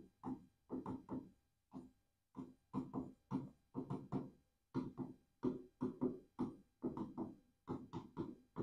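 A marker writing on a board in quick, short squeaky strokes, two or three a second in irregular groups, as words are written out.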